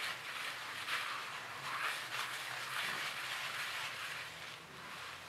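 A cloth scrubbing a wet ceramic plate in repeated wiping strokes, working degreaser into the grease to lift it off; the rubbing eases near the end.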